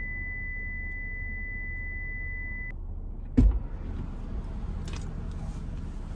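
A steady high-pitched beep that cuts off suddenly, then a single loud thump over a low steady rumble.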